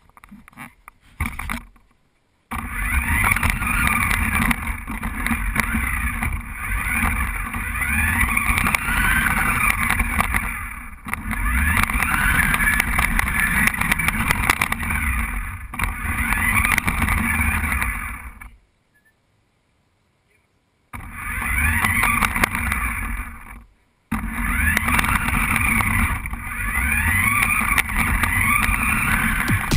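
Remote-controlled toy car's electric motor and gears whining, the pitch rising and falling as it speeds up and slows, over rumbling wheel noise. The sound cuts out completely for about two seconds past the middle and again briefly a few seconds later.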